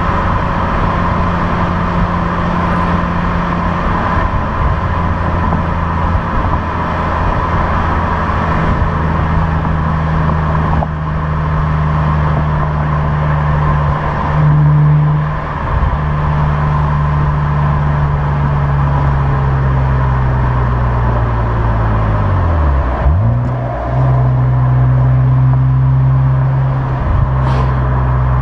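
Opel Insignia OPC's stock-exhaust 2.8-litre turbo V6 running steadily under way. Its note sags after about twenty seconds, dips sharply, then picks up again at a slightly higher pitch.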